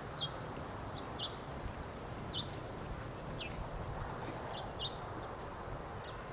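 Short, high bird call notes, about eight of them scattered irregularly over a few seconds, above a steady low background rumble.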